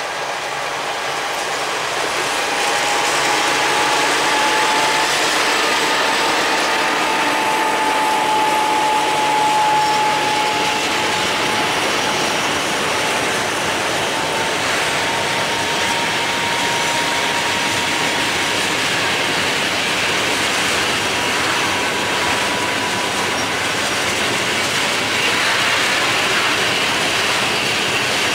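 A freight train of open coal wagons rolls slowly past behind a BR232 diesel locomotive, its wheels clanking rhythmically over the rail joints. The sound grows louder over the first few seconds and then holds steady. A thin, steady, high wheel squeal runs through it until about two-thirds of the way in.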